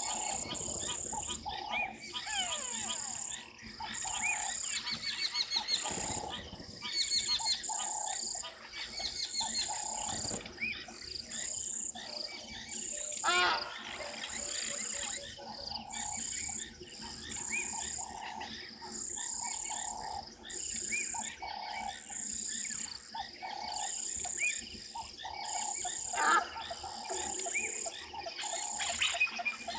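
Hadada ibises calling with harsh, repeated honking cries in several bouts. Behind them runs a steady, regularly pulsing chorus of small creatures.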